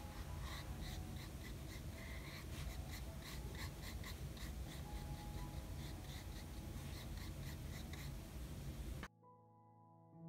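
Faint, repeated soft scratching of a small flat paintbrush spreading gouache across sketchbook paper, over room hiss. It cuts off abruptly about nine seconds in.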